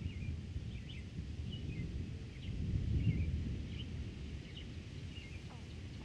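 Wind gusting over the microphones with a low rumble that swells about three seconds in, while a small bird chirps over and over in short high notes, about two a second.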